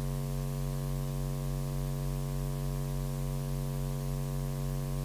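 Steady electrical mains hum with a buzzing row of overtones and a light hiss, from the commentary microphone's audio line while nobody speaks.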